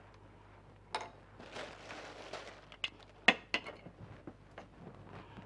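Spoons and small spice dishes clicking and clinking against each other on a countertop as spices are measured out, with a soft rustle early on and one louder clink a little past halfway.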